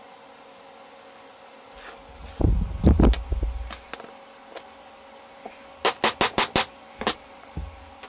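Workshop handling noises at a workbench over a faint steady hum: a few dull knocks as a plywood disc and bolt are handled, then a quick run of five sharp taps, followed by two more single taps.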